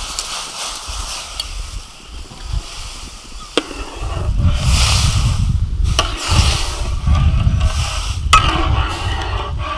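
Rice pouring into water in a large metal wok. A metal ladle then clinks against the wok about three and a half seconds in and stirs and scrapes the rice around through the water with repeated swishes.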